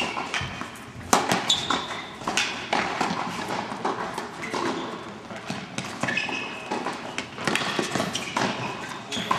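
Tennis rally on an indoor hard court: racket strikes on the ball and ball bounces heard as sharp, irregular knocks that echo in the hall.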